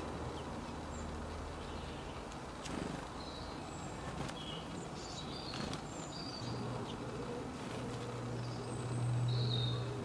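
Outdoor garden ambience with scattered short, high bird chirps. A low, steady drone comes in about six seconds in and grows louder toward the end.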